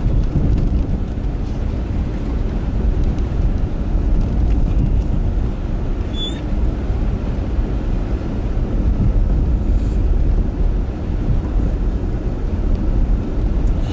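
A vehicle driving across a frozen lake: a steady low rumble of the vehicle moving over the ice, with wind buffeting the microphone.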